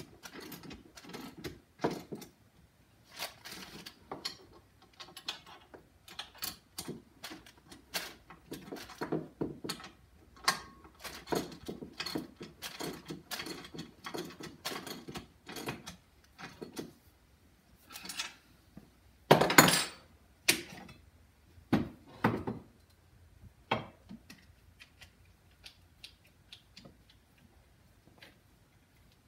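Wrenches and steel hardware clinking and clicking irregularly as the nuts and lock washers on the bolts of a tabletop hydraulic press frame are tightened by hand. A louder metal clank comes about twenty seconds in.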